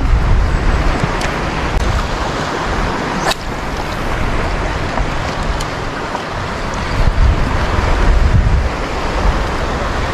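Wind buffeting the microphone over the wash of sea water, with a few sharp clicks, the loudest about three seconds in.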